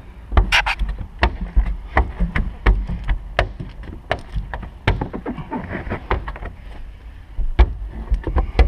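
Blue Max squeegee worked over wet window-tint film on the inside of a car's rear glass, pushing out the water-and-baby-shampoo slip solution: a string of irregular wet swishes and short knocks, a few a second.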